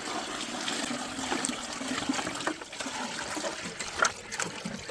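Water pouring from a bucket into the chickens' water container, a steady splashing pour that thins out near the end.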